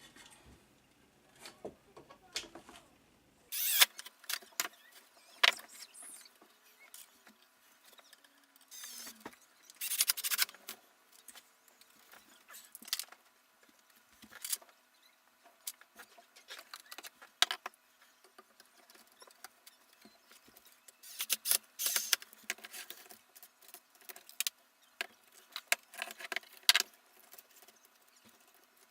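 Irregular clicks, clinks and rattles of small metal parts and hand tools being handled, with a few faint short squeaks; the louder clattering comes in clusters.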